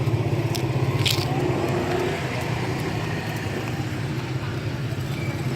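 Steady engine hum of nearby street traffic, with a sharp click about half a second in and a louder one about a second in.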